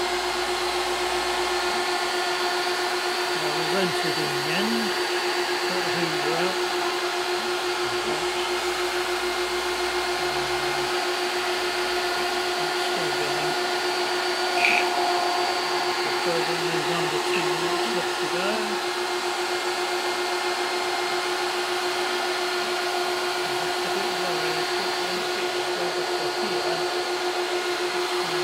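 CNC router spindle running steadily at high speed, a single-flute 6 mm end mill cutting aluminium plate, over the steady rush of a vacuum hose sucking up the chips. There is one short louder chirp from the cut about halfway through.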